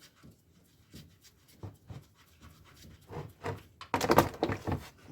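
A 21 mm spanner working the gearbox drain plug loose under a car: scattered clicks and knocks, with a louder cluster of them about four seconds in.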